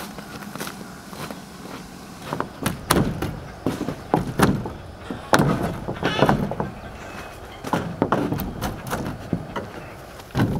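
Irregular knocks and thuds of wooden siding panels and boards being handled and taken off a pole barn.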